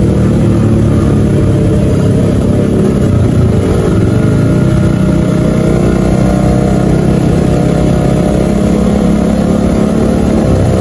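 Motorcycle engine running through an HTX aftermarket exhaust at low, steady revs while the bike rolls slowly in traffic.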